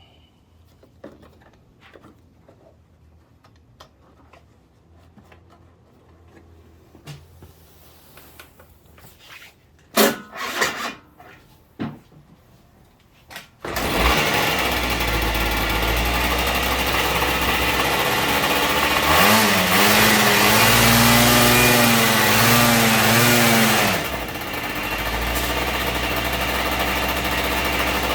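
Daelim a-FOUR 50 scooter engine being started: a few short cranking bursts, then it catches about halfway through and runs. It revs for several seconds and then drops back to a steady idle.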